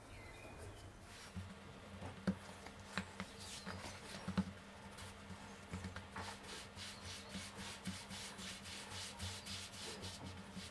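Floured fingers pressing and stretching pizza dough by hand on a floured worktop: faint, irregular rubbing and soft pats of fingertips on the dough, with a few light taps on the surface, as the base is shaped.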